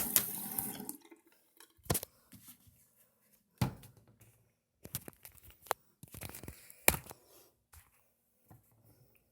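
Running water, like a tap, cuts off about a second in, followed by a few scattered sharp clicks and knocks and a short rustle.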